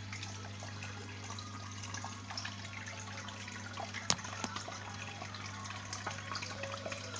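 Marine aquarium water circulating: trickling and bubbling water over a steady low pump hum, with one sharp click about four seconds in.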